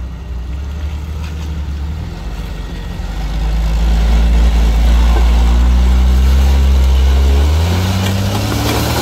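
Off-road 4x4 truck engine working on a rock-crawling climb. It grows louder about three seconds in, then revs climb near the end.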